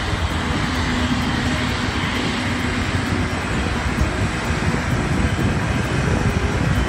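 Steady jet turbine noise, with wind rumbling on the microphone.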